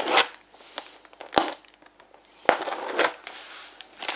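Shipping parcel being opened by hand: packaging rustling and crinkling, with three louder sharp rips or knocks, at the start, about a second and a half in, and about two and a half seconds in.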